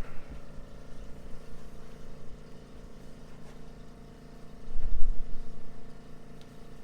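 A steady low hum from running equipment, made of several fixed pitches. About five seconds in comes a dull low thump that swells and fades over about half a second.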